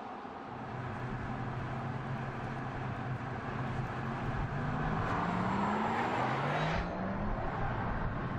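Porsche Taycan Turbo electric sedan driving by: a steady electric drive hum, then tones rising in pitch as it accelerates. A tyre and wind rush swells around five to six seconds in and drops off sharply near seven seconds.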